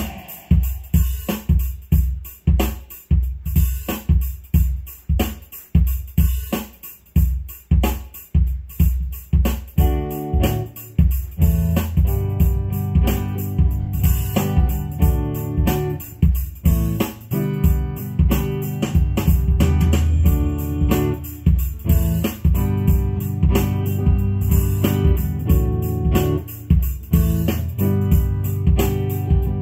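Instrumental music with a steady beat; more pitched instruments join about ten seconds in and fill out the sound.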